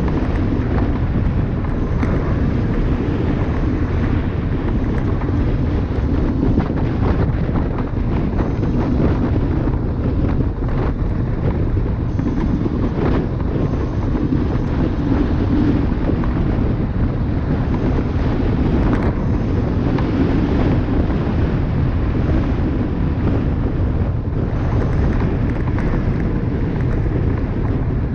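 Wind buffeting the microphone and tyre rumble from a Dualtron Thunder electric scooter riding at speed over rough, patched asphalt, a steady low noise with a few faint knocks from bumps in the road.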